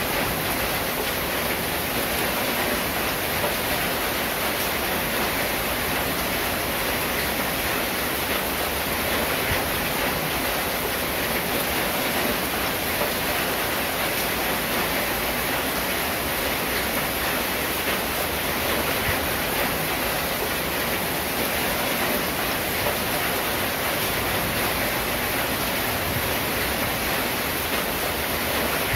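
Steady rain falling on a corrugated zinc roof: a dense, even hiss without separate drops standing out.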